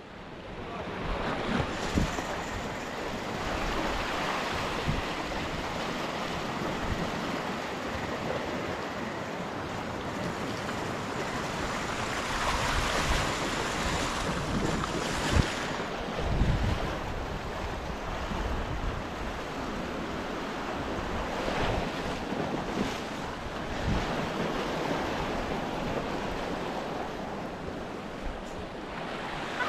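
Small sea waves washing and breaking over a rocky shore, with wind buffeting the microphone. A few brief knocks stand out, the loudest about halfway through.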